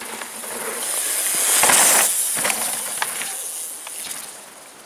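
Downhill mountain bike passing close by: its tyres hiss over the loose dirt, swelling to a peak about two seconds in and then fading as it rides away, with a few sharp clicks and knocks along the way.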